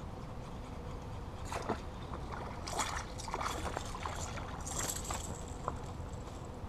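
A small hooked bass splashing at the water's surface as it is reeled to the bank, in a string of short splashes over a few seconds.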